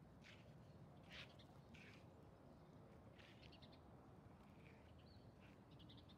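Near silence: a quiet outdoor background with a few faint, short high-pitched chirps or ticks scattered through it.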